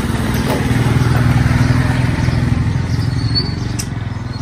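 A motor vehicle's engine running close by. It grows to its loudest about a second and a half in, then slowly fades as it passes.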